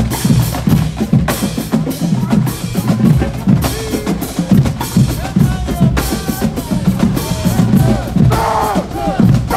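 Marching band drumline playing a cadence: snare and bass drums beating a quick, steady rhythm.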